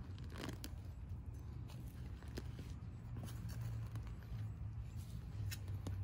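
Gloved hands and a small hand trowel digging through loose potting soil in a plastic pot, giving scattered soft scrapes and crunches over a steady low hum.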